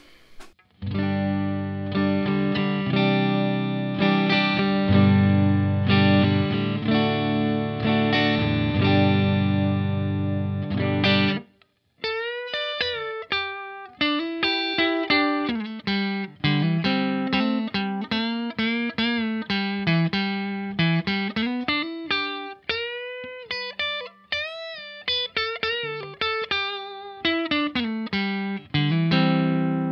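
Squier Affinity Telecaster electric guitar played through a Marshall DSL40CR valve combo amp. Chords are strummed for about ten seconds and cut off suddenly, then single-note lead lines follow with string bends that rise and fall in pitch, testing whether the freshly set-up guitar holds its tuning.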